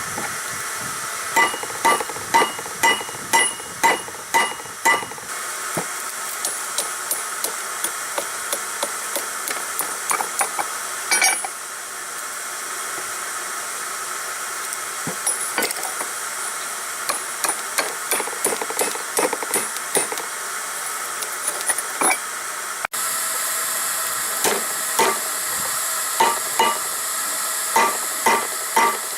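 Hand hammer forging a hot file on an anvil: runs of ringing blows about two or three a second, with lighter, sparser strikes in the middle, over a steady hiss.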